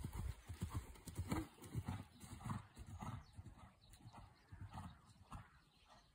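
Hoofbeats of a horse cantering on a soft sand arena surface: a rhythmic run of dull thuds that grows fainter as the horse moves away.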